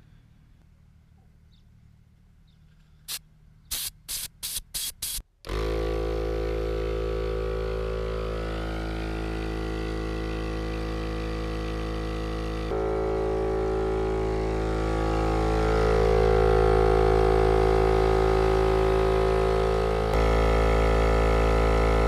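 Smittybilt 12V portable air compressor running steadily as it inflates a light-truck tyre from 25 PSI, with an even motor-and-pump drone that begins about five seconds in. It is preceded by a quick run of about six clicks, and its loudness steps up abruptly twice.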